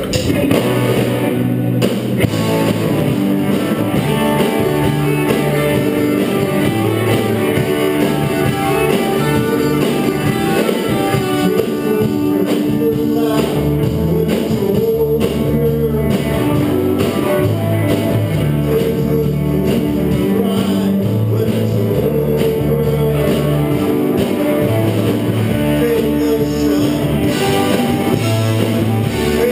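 Live roots-rock band playing at full volume: several electric guitars over bass and a drum kit, with a man singing lead into a microphone.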